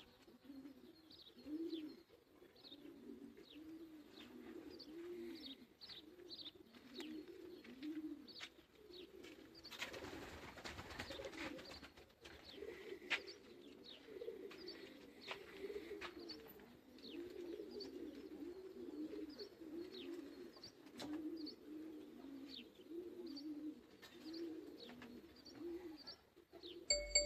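Domestic pigeons cooing over and over, a string of low coos that rise and fall, with small birds chirping in short, high, falling notes above them. A brief rush of noise comes about ten seconds in.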